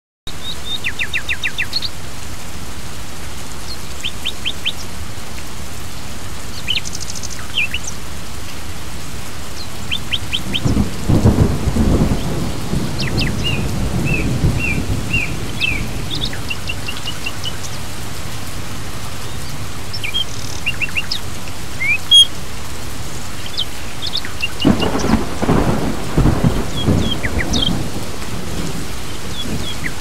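Steady rain hissing throughout, with two long rolls of thunder, one about ten seconds in and another about twenty-five seconds in. Birds chirp and tweet in short calls over the rain.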